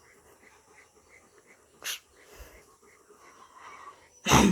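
A dog giving two short, sharp snorts of breath, about two seconds in and near the end, the second louder.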